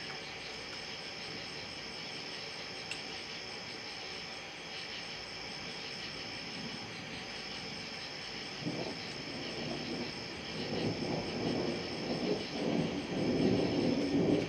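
Steady chorus of night insects, with thunder rumbling in from about nine seconds in and swelling louder toward the end.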